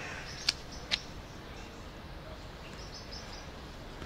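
Faint high chirping of small birds in the trees over a steady outdoor background, with two sharp clicks about half a second apart near the start.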